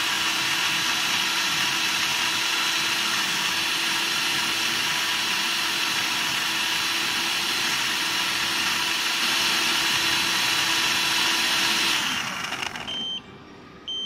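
OZEN vacuum blender's motor running steadily at high speed with a liquid in the sealed jar, then winding down about twelve seconds in. Two short beeps about a second apart follow as it stops.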